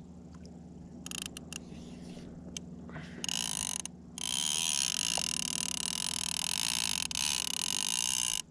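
Fishing reel's drag or clicker screaming as line is pulled off. It comes in short bursts about a second in and around three seconds, then runs on for about four seconds and cuts off suddenly near the end: a fish running with an unattended line. A steady low hum lies underneath.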